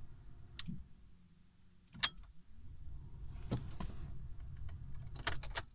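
Sharp clicks and snaps of the ignition key and switch in a car cabin over a low hum; a quick cluster of clicks near the end as the ignition is switched off, and the hum cuts out right after.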